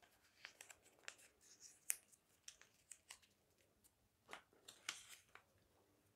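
Faint crinkling and crackling of a small folded paper slip being unfolded by hand, in short irregular bursts.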